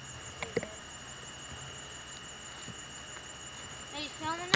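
A steady high pulsing drone of summer insects runs throughout, with a small click about half a second in. A short voice with rising and falling pitch comes near the end.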